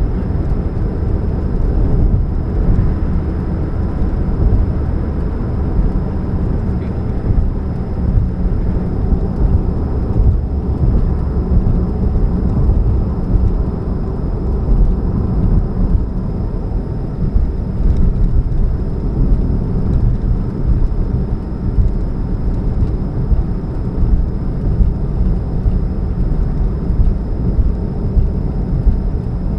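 2013 Chevrolet Spark's four-cylinder engine running, a steady low drone with a faint steady hum on top. The humming is put down to an exhaust leak at the catalytic converter.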